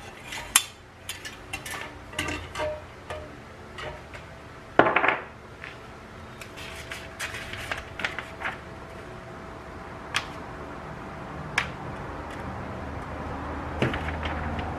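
Metal and plastic ceiling-fan parts clinking and knocking as they are handled and fitted together, with a louder clatter about five seconds in. A low rumble builds near the end.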